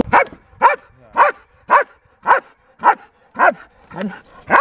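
German Shepherd barking steadily at the helper in the hiding blind, nine sharp barks about two a second, each falling slightly in pitch: the bark-and-hold of protection training.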